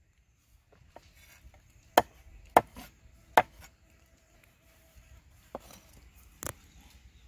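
A few irregular, sharp knocks of a cleaver striking a wooden chopping board, the three loudest close together about two to three and a half seconds in, with fainter ones before and after.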